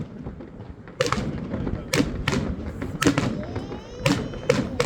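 New Year's Eve fireworks: firecrackers and rockets going off in an irregular series of about eight sharp bangs over a steady background rumble, with a faint whistle about three and a half seconds in.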